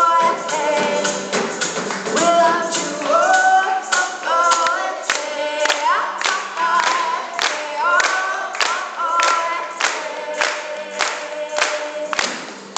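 Live band performance: several voices singing together in harmony over a steady percussive beat of about two and a half strikes a second, the music stopping near the end.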